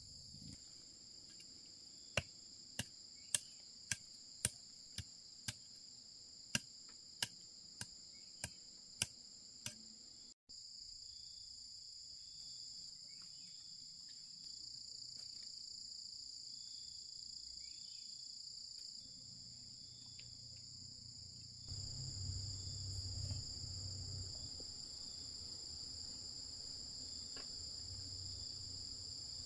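Steady high-pitched insect chorus. About a dozen sharp knocks come in the first third, and a low rumble joins about two-thirds of the way through.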